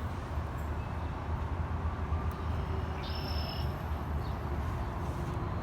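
Steady low rumbling outdoor noise, with a short high chirp a little after three seconds in.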